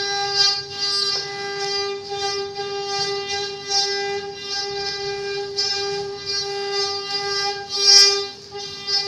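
Homemade belt-driven wood lathe running with a steady high whine. A rasping hiss swells and fades about every half second as the spinning wooden disc is worked by hand, sharpest near the end.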